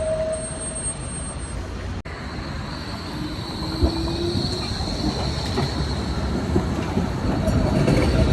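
Flexity tram's steel wheels squealing against the rails while rounding a tight 90-degree curve, heard as a loud, steady, high-pitched screech over the rumble of the rolling tram. This curve squeal is the noise of a low-floor tram taking a sharp bend.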